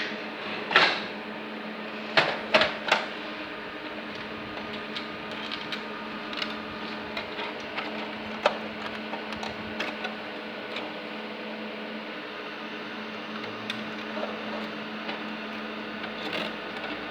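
Sharp clicks and knocks of small hard parts being handled, several in the first three seconds and one more about eight seconds in, with lighter ticks between, over a steady electrical hum.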